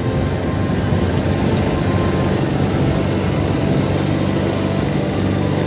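Small wooden boat's engine running steadily at a constant pitch.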